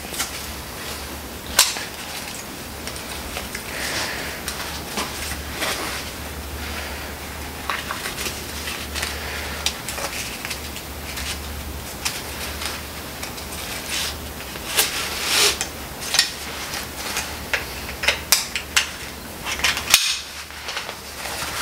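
Manual-therapy traction belt being adjusted and shortened: buckle clinks and clicks with strap handling, the clicks coming more often toward the end, over a steady low hum.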